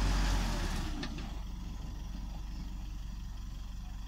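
Isuzu D-Max 3.0 Ddi four-cylinder turbodiesel pickup under load on a steep muddy slope, surging loudly for about the first second, then running steadily at a low, even note.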